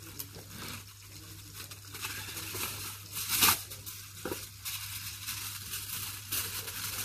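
Aluminium tin foil being torn and crinkled as it is wrapped around cooked steaks, a run of rustles and crackles with one loud crinkle about three and a half seconds in.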